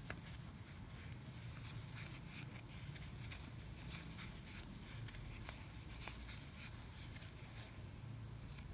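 Faint, irregular scratching and small ticks of a metal crochet hook pulling milk cotton yarn through single crochet stitches, over a low steady hum.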